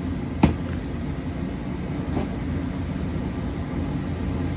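Steady low rumble, like a vehicle cabin or machine drone, with a sharp click about half a second in and a fainter one about two seconds in.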